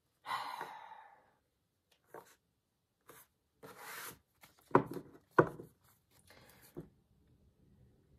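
Tarot cards handled on a tabletop: papery sliding and shuffling rustles, with two sharp taps a little past the middle.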